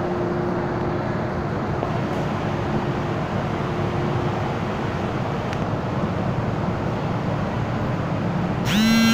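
Steady hum of an MTR M-Train standing at an underground platform. Near the end, a loud door-closing warning buzzer starts, a single held tone that rises slightly as it begins.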